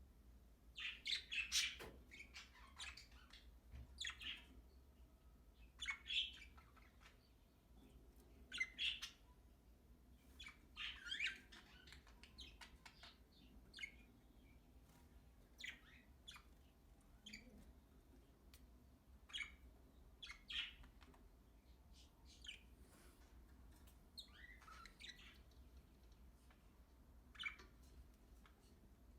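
Budgerigars chirping: short high chirps, singly and in quick little clusters, every second or two.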